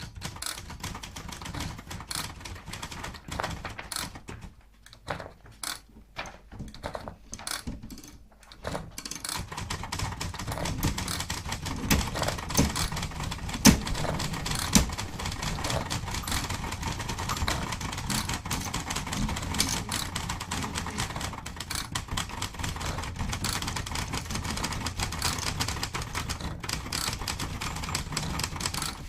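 Typewriter keystrokes, at first separate clicks with gaps between them. From about nine seconds in they thicken into a dense, continuous clatter of layered typing over a low rumble.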